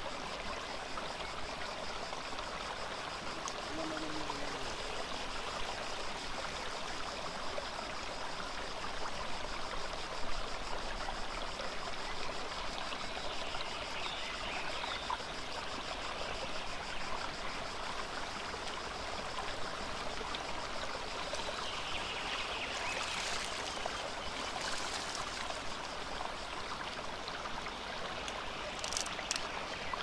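Shallow stream running steadily over rocks and stones, a continuous rushing and trickling, with a few brief clicks in the second half.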